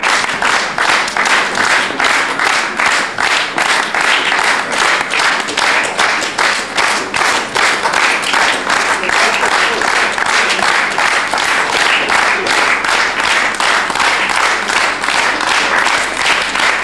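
Audience applauding, clapping together in a steady rhythm of about three claps a second.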